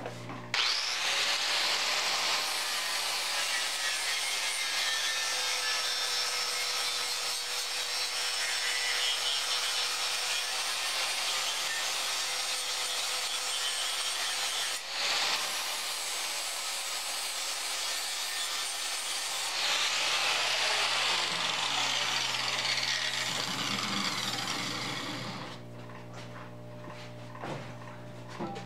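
Handheld angle grinder grinding paint off a piece of sheet metal: a continuous harsh grinding noise over the motor's steady whine. It breaks off briefly about halfway through and stops near the end.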